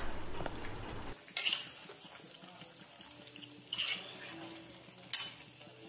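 Metal spatula stirring and scraping chicken and potatoes around a kadai: a busy run of scraping for about the first second, then three short, sharp scrapes against the pan spread through the rest.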